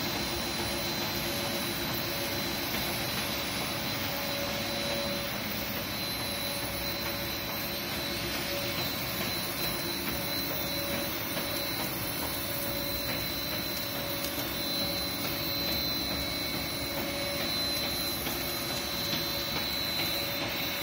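Heavy-duty CNC lathe turning a large steel cylinder under cut: a steady machine noise from the spindle drive and cutting tool, with a steady high whine over it.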